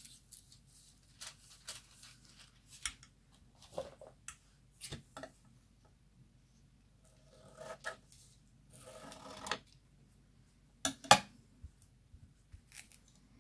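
Thin metallic hot-stamping foil rustling and crinkling as it is pulled off its roll, then scissors snipping a piece off. The loudest snips come about eleven seconds in.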